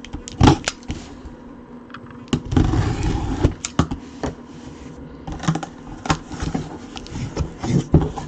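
A cardboard box being opened and its packaging handled: a string of sharp knocks and clicks, with a rustling scrape about two and a half to three and a half seconds in.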